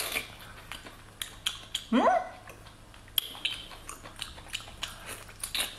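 Wet close-up eating sounds of a whole braised octopus being bitten, pulled and torn by hand and mouth: scattered sticky smacks and clicks. About two seconds in comes a short rising voiced squeak, the loudest moment.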